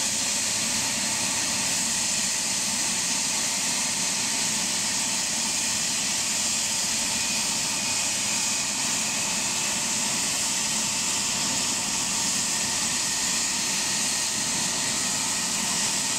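BK 117 helicopter's twin turbine engines running steadily at ground idle before takeoff, a high, even hiss and whine. The main rotor is turning with its blades flat, so there is little blade chop.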